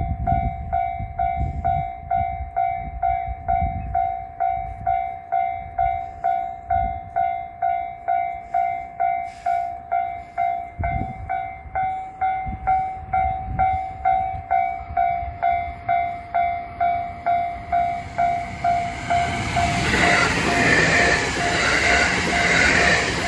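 Japanese level-crossing alarm bell ringing steadily, about two dings a second, over a low rumble. About twenty seconds in, the noise of a passing train rises and becomes louder than the bell.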